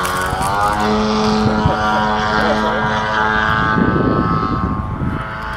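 Engine and propeller of a large radio-controlled MXS aerobatic model plane running at a steady, even pitch as it flies past, fading slightly about four seconds in before picking up again.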